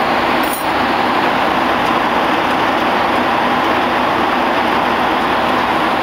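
Steady rushing cabin noise of an airliner in cruise, engines and airflow heard from inside the cabin, with a small click about half a second in.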